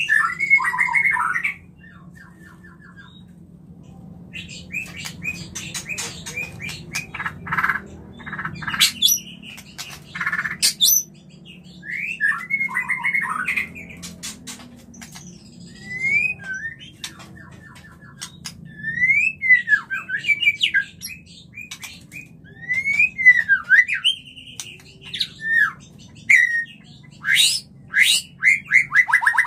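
White-rumped shama (murai batu) in breeding condition singing: a varied run of phrases made of clear gliding whistles, fast harsh chattering notes and sharp clicks, with short pauses between phrases.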